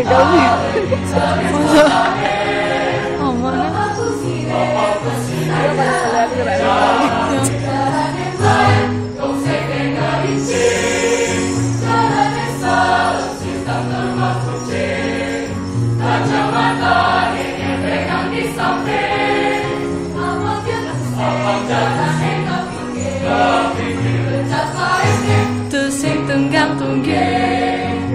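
High-school mixed choir singing in parts, with a low bass line moving note to note beneath held higher voices.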